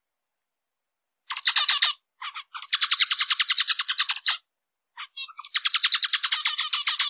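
Zebra finch singing: starting about a second in, three runs of rapid, buzzy notes repeated about a dozen times a second, the longest in the middle, each separated by a short pause.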